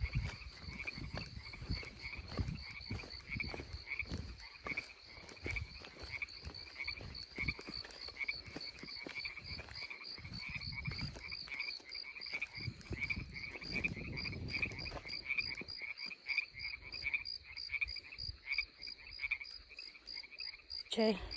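Frogs calling steadily by the water, a fast run of short repeated notes that never lets up, with the low thuds of footsteps on a dirt bank underneath.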